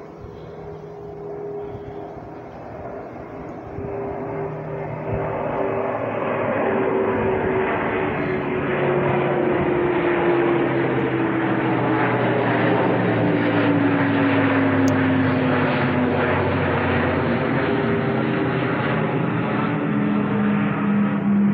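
Airbus A400M Atlas's four turboprop engines droning as it flies over, growing louder over the first several seconds and then holding. A propeller tone slides steadily down in pitch as the aircraft passes.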